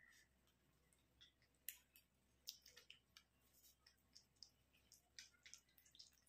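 Near silence with faint, irregular clicks and crackles from a sugar-coated tomato half being rubbed over the skin of the face as a scrub.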